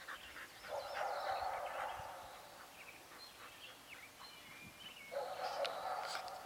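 Birds chirping in the background, with stretches of dog noise from the Labrador retrievers about a second in and again near the end.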